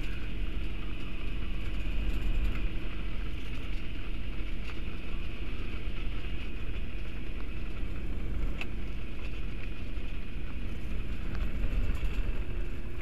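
Microlight's engine and propeller running at low power while it taxis over grass, heard from inside the cockpit as a steady rumble with a faint even hum.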